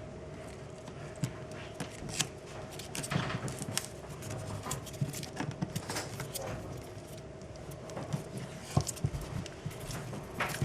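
Tape being wrapped around the end of a coax cable and a fish tape by hand: irregular clicks, crackles and rustles of handling, with a few sharper snaps, about two seconds in, around three seconds in and near the end.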